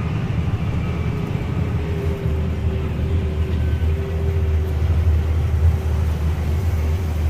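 Farm harvest machinery running steadily: a continuous low engine rumble with a faint steady whine over it.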